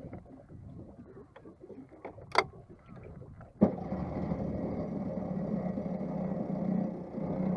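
A sharp click a little over two seconds in, then a motor starts abruptly a second later and runs at a steady pitch.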